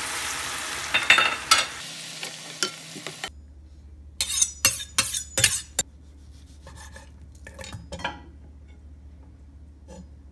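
Food sizzling in oil in a frying pan while a utensil stirs and clacks against it. The sizzling stops abruptly after about three seconds, and a run of sharp clacks of a utensil on cookware follows, loudest in the middle and fainter near the end.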